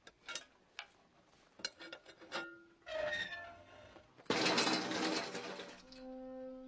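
Sharp metallic clicks and taps from the pin and hinge bracket at the foot of a wooden flagpole, one with a brief ring, as the pin is worked loose. About four seconds in comes the loudest sound, a noisy crash lasting about a second as the pole comes down. Orchestral music starts near the end.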